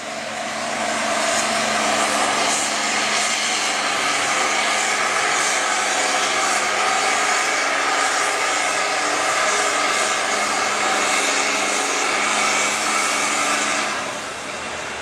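Pulling tractor's diesel engine held at full throttle during a pull, a loud steady drone that swells about a second in and eases off near the end.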